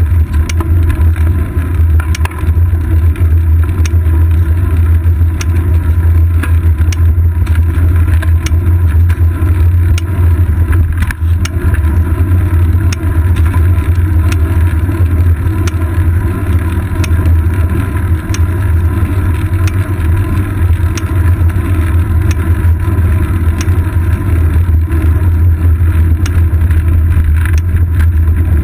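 Steady low rumble of road vibration and wind picked up by a seat-post-mounted GoPro Hero 2 on a moving bicycle, with many small rattling clicks from the mount over the road surface.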